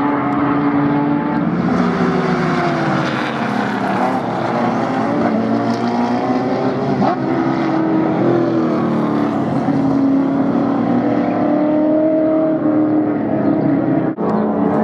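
Several Improved Production race car engines running hard together, their notes rising and falling as they accelerate and change gear, with a short break near the end.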